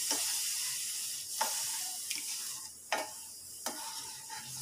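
Wooden spatula stirring a watery mix of ghee-roasted wheat flour and sugar in a hot pan, the water newly added: a sizzling hiss that fades, with a few strokes of the spatula through the liquid.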